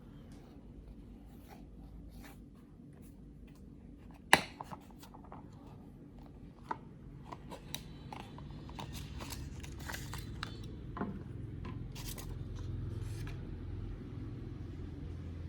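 Small hand tools clicking and scraping on a phone's parts during repair work, with one sharp, loud click about four seconds in. A low hum grows louder in the background from about halfway.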